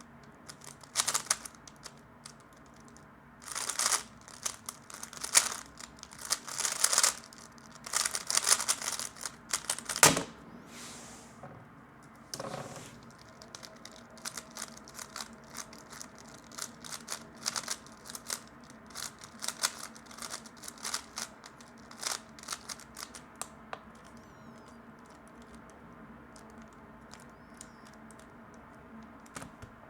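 Plastic 3x3 speedcube being turned fast: quick rattling clicks of the layers, in dense flurries for the first ten seconds or so, then a steadier run of smaller clicks that dies down near the end.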